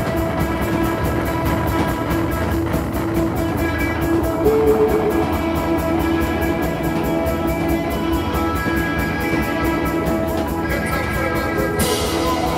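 Live band playing loud, sustained music, with electric guitar holding long droning notes over a dense, steady wall of sound.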